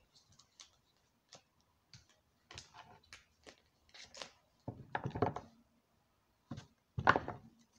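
A deck of tarot cards being shuffled by hand: a run of soft flicks and papery swishes, with two louder rustling spells about five and seven seconds in.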